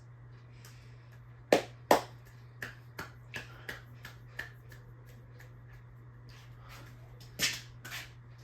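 Steady low hum of a running Harbor Breeze Armory ceiling fan, with a series of sharp clicks over it: two loud ones about a second and a half in, several softer ones over the next few seconds, and two more near the end.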